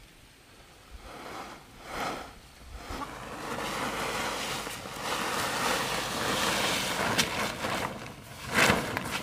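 Woven plastic tarp rustling and sliding as it is dragged and folded over a layer of dried cassava chips, with one sharp, loud flap near the end.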